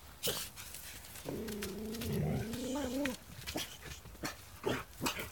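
Dog barking at a horse: one sharp bark right at the start, then a drawn-out wavering whine lasting nearly two seconds, followed by a string of short sharp barks.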